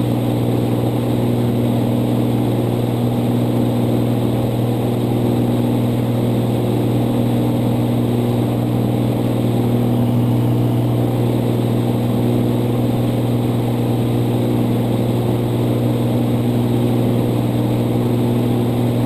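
Cabin drone of a Cirrus SR22's six-cylinder Continental IO-550 engine and propeller at cruise power, about 2400 RPM, held steady while the mixture is leaned to lean of peak.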